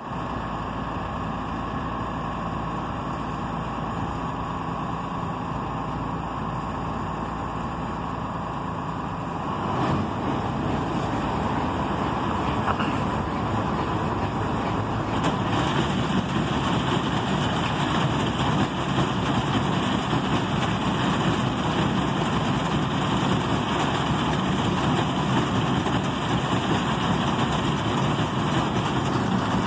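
John Deere 1170 combine harvester's diesel engine running steadily, then growing louder and busier about ten seconds in and louder again around fifteen seconds.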